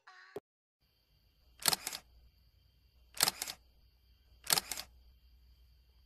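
Three sharp double clicks, about a second and a half apart, a shutter-like click sound effect for an on-screen subscribe button. A faint steady high whine and low hum run underneath.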